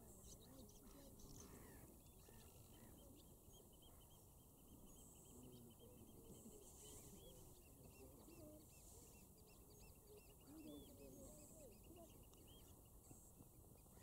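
Faint calls of many distant birds: a steady patter of short, quick high chirps with scattered lower, wavering calls among them.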